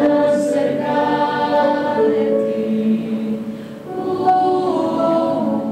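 Choir singing slow, held chords, moving to new notes about two and four seconds in.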